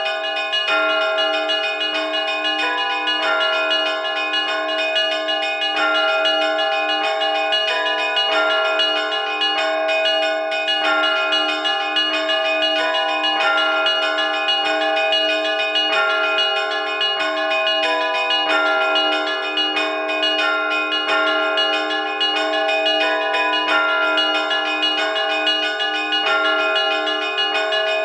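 Russian Orthodox church bells rung by hand: two of the heavier middle bells take turns in a simple repeating tune over a quick, steady run of strikes on the other bells, all ringing on without a break. This is a simple peal rung for the evening service.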